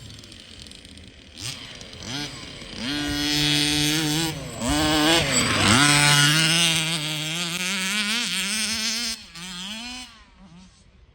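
Small two-stroke engine of a 1/5-scale Baja 5B RC buggy revving up and down under changing throttle, its pitch rising and falling repeatedly. It gets loudest in the middle, then falls away sharply near the end.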